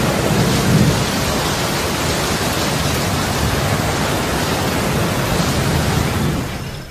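Steady rushing noise that dies away near the end.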